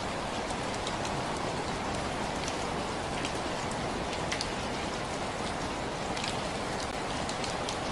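Steady rain: an even hiss of rainfall with scattered individual drops ticking sharply on a surface.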